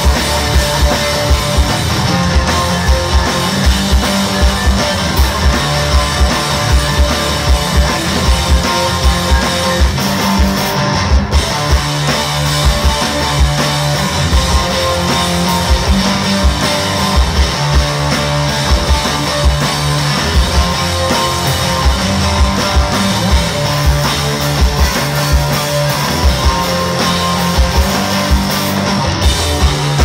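A rock band playing live on electric bass, electric guitar and drum kit, loud and dense, over a steady kick-drum beat.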